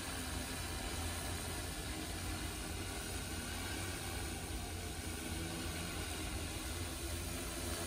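INNLOI 1133 mm hexacopter's six DJI E2000 motors and propellers running steadily while it hovers, a constant whirring hum under a low rumble.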